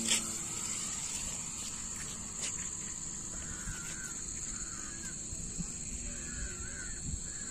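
Crows cawing several times in short runs, over a steady high hum of insects, with a brief sharp knock right at the start.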